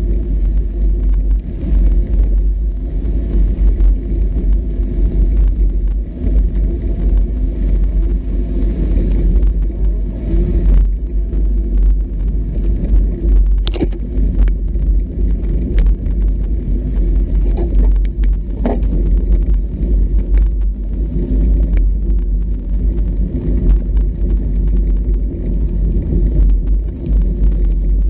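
Off-road vehicle driving with its engine running steadily and a heavy low rumble, with a few short knocks and rattles about halfway through.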